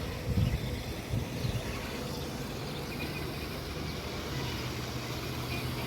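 A steady low motor hum, like a vehicle engine running, with a few low bumps in the first second and a half and a held low drone joining about four seconds in.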